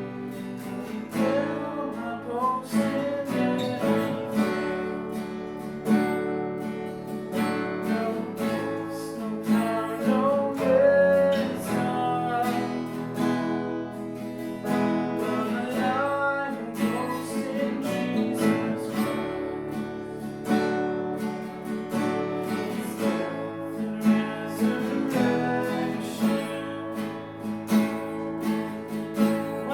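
Acoustic guitar strumming chords steadily, playing a worship song.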